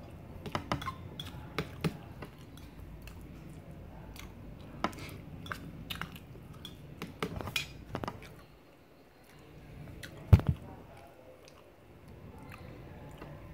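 A metal fork clicking and scraping against a metal plate in scattered taps, with chewing in between; a louder knock comes about ten seconds in.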